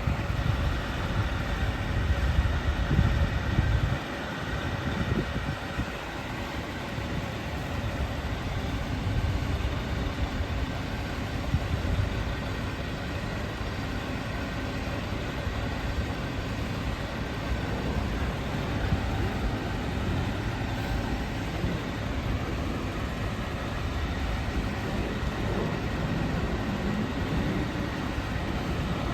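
A fire truck's engine running with a steady low rumble, louder in the first four seconds and then quieter.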